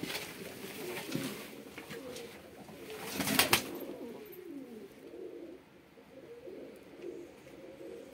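Domestic pigeons cooing, a low warbling that goes on through the whole stretch. A little over three seconds in come two loud sharp knocks.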